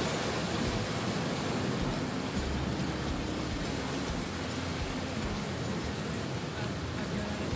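Steady rushing noise of sea surf on the shore, with wind buffeting the microphone in the low end.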